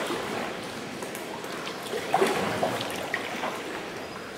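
Water trickling and lapping around a sea kayak inside a sea cave, with scattered small drips.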